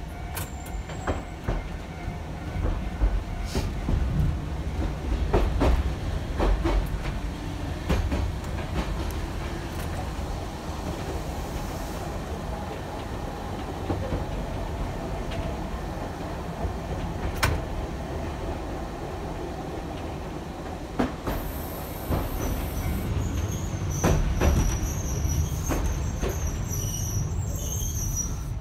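Hankai Tramway streetcar running on its rails, heard from inside the car: a steady low rumble with irregular clicks of the wheels over rail joints. A thin high wheel squeal joins near the end.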